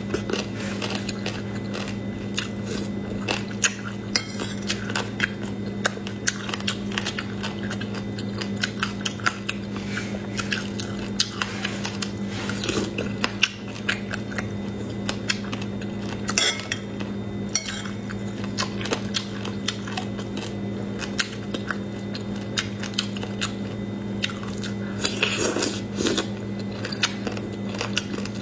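Metal spoon clinking and scraping against a ceramic bowl in many short sharp clicks, with chewing and biting of boneless chicken feet in chili oil, over a steady low hum.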